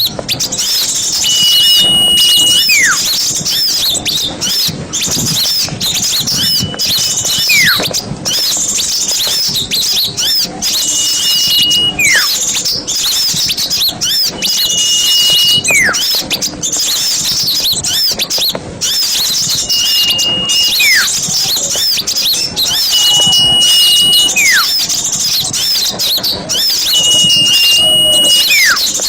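Bird-lure (pikat) recording of a crowd of small birds chattering busily and continuously. About every four seconds a steady high whistle is followed by a single note sliding sharply downward.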